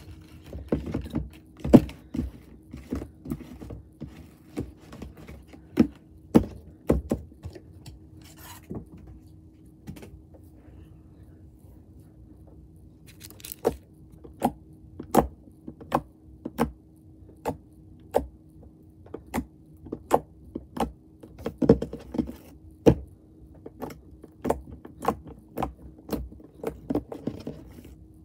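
Slime being kneaded and squished in the hands, giving irregular sharp clicks and pops, with a quieter stretch about a third of the way in.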